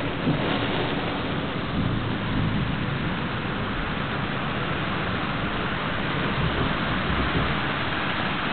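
Very heavy rain pouring down, an even, dense hiss of rain that does not let up.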